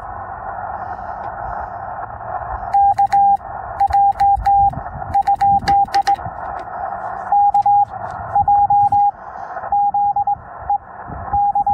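Morse code (CW) from a Yaesu FT-891 transceiver on 20 metres: a single steady tone keyed in groups of dits and dahs over the hiss of the receiver's band noise. The first few seconds are hiss only. The tones start about three seconds in, and the first groups carry the sharp clicks of a straight key.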